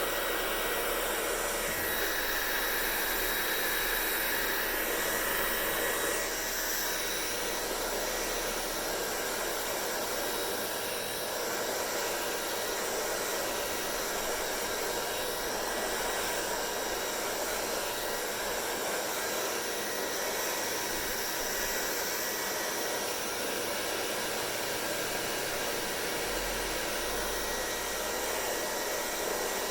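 Hair dryer running steadily: an even rush of blown air with a faint steady whine in it, dipping slightly in level about six seconds in.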